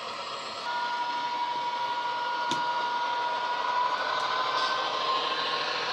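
Simulated Class 67 diesel locomotive sound from an ESU LokSound decoder, played through the small speaker of a Hornby OO-gauge model: steady engine noise with a whine that comes in about a second in and rises slightly in pitch.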